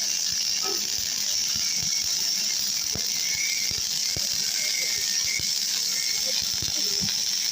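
MIG welding arc crackling: a dense run of irregular sharp crackles over a steady hiss.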